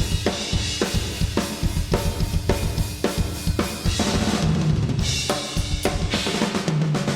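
Playback of a heavy metal drum kit in a mix: a fast, dense kick drum under snare hits about twice a second, with cymbals. A low held note sounds twice, about four seconds in and near the end.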